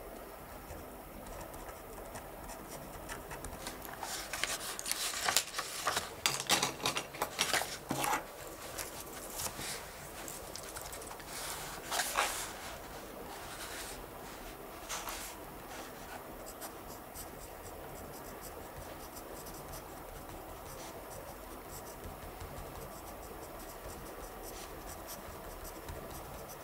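Pen writing on paper: a quick flurry of scratching strokes a few seconds in, a couple more strokes around the middle, then only faint scratching.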